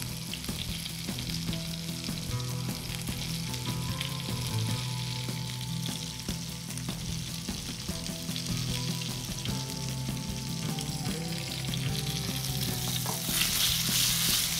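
Skewered chicken chullu kababs shallow-frying in a little oil in a nonstick pan: a steady sizzle that swells louder near the end.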